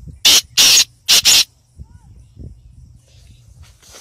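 Black francolin calling close up: three loud, harsh, hissy notes in quick succession in the first second and a half.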